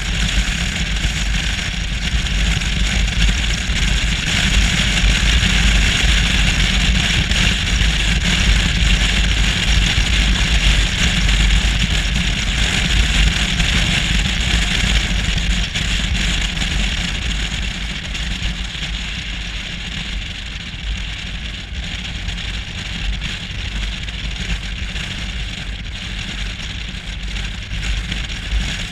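Motorcycle riding at road speed: wind rushing over the camera mixed with a low rumble from the engine and tyres. The sound eases somewhat in the second half.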